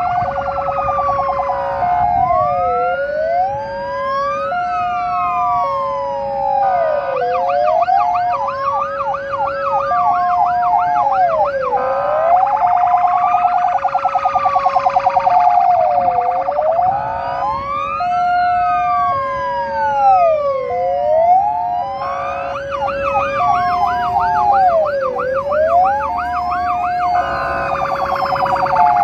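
Several emergency-vehicle sirens sounding at once. A slow rising-and-falling wail runs together with a two-note hi-lo tone stepping back and forth about once a second, and in stretches a rapid yelp.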